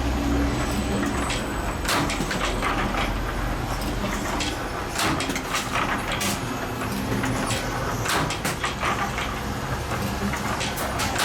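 Spring-making machine running: a steady low machine hum with irregular sharp metallic clicks and clatter throughout.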